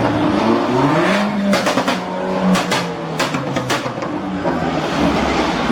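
Car engine revving, its pitch climbing about a second in, holding, then dropping, with a run of sharp exhaust pops and crackles in the middle.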